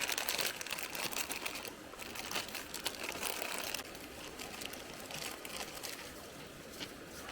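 Crinkling and crunching, dense for the first four seconds and lighter after that.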